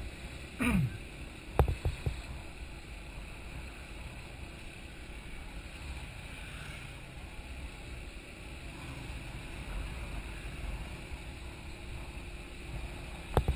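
Wind noise on the microphone over the low steady running noise of a sport motorcycle riding along a city street. There is a brief falling sound under a second in, and a few sharp knocks about two seconds in and again near the end.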